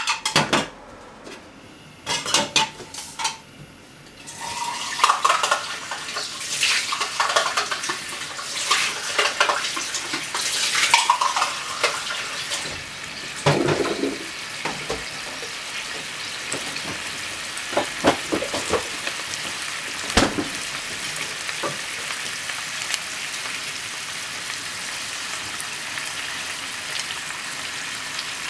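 Pork-wrapped potato rolls frying in sauce in a frying pan, with a steady sizzle that sets in about four seconds in. Scattered clinks and knocks of utensils against the pan in the first half, and a few single clicks later.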